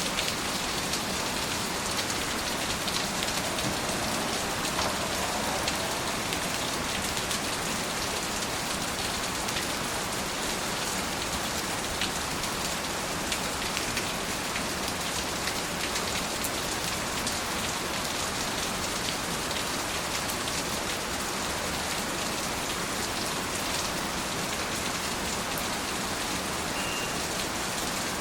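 Steady rain falling, with many small drops ticking on a surface.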